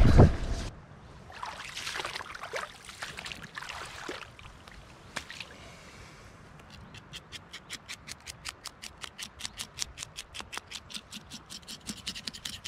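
Wind buffeting the microphone briefly at the start, then an even, rapid clicking of about six or seven clicks a second from a little past halfway: a fishing reel's ratchet or drag clicking.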